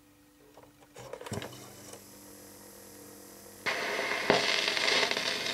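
Old 78-era-style 45 rpm shellac-sound vinyl single on a turntable: a few clicks and thumps about a second in as the stylus is set down, then the lead-in groove plays with surface crackle and hiss that jumps to a loud level about four seconds in.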